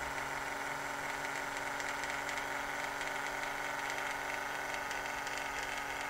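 HO scale model railroad turntable's electric drive humming steadily as the bridge rotates, a constant motor-and-gear tone.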